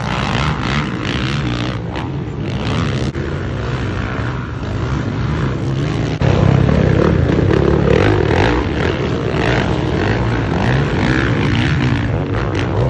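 Motocross bikes racing, engines revving up and down, growing louder about six seconds in as bikes pass close.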